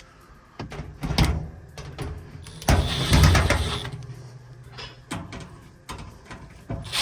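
Handling noise from reassembling a dryer: a few knocks, then a loud scraping slide about three seconds in, more knocks after it, over a low steady hum.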